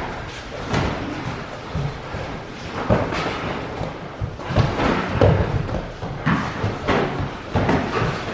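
Irregular thumps of padded sparring gloves and foot pads landing on bodies and guards, several pairs striking at once, the hardest hits coming in the second half.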